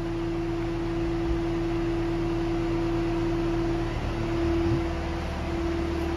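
Samsung SL2500SY CNC turning center running under power: a steady mechanical hum carrying one clear, steady tone, with a low hum that shifts slightly about four seconds in.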